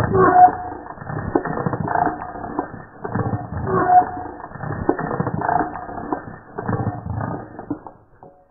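Designed 'dungeon creak' sound effect, made from a household appliance recording put through a single audio transformation. It gives slow, repeating creaks, each a swell of dense rapid clicks coming about every one and a half to two seconds, and dies away near the end.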